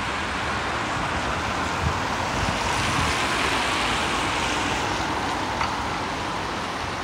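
Wind rumbling on the microphone over steady traffic noise from wet road tyres, with the hiss swelling as a car drives past near the middle.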